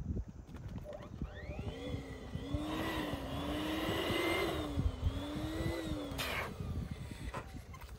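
Small electric air pump running for about four seconds while filling a latex balloon, a humming whine that wavers up and down in pitch, then switched off near the end. Wind rumbles on the microphone throughout.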